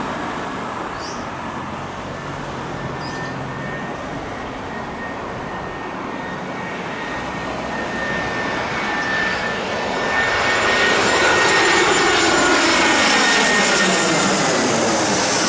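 Airbus A320-214's CFM56 turbofan engines on landing approach: a steady high-pitched whine over a broad jet rush. It grows clearly louder about two-thirds of the way through, with sweeping, shifting tones, as the jet passes close by.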